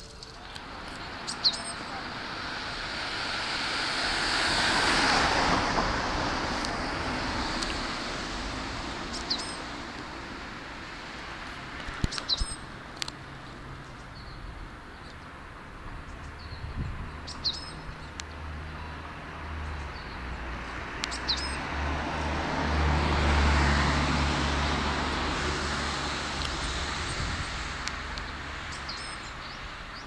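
Two Keikyu electric trains pass one after the other. Each is a rumble that swells over several seconds and fades away, the second with a low hum under it. Small birds perched on the overhead railway wires give short, high chirps every few seconds throughout.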